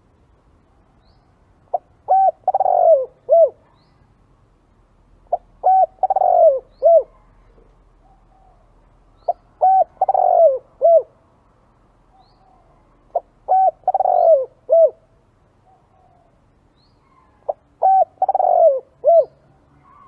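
Spotted dove calling: five repeated cooing phrases, one about every four seconds, each a few short hooting notes around a longer coo that falls in pitch.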